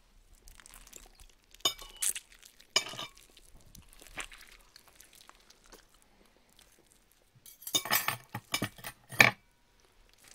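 Metal cutlery and tableware clinking in short, ringing knocks: a few about two seconds in, then a quick cluster near the end, the loudest just after nine seconds.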